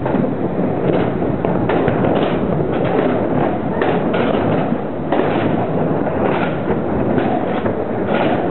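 Skateboard and inline-skate wheels rolling on concrete: a steady rolling noise with frequent clacks and thumps of boards.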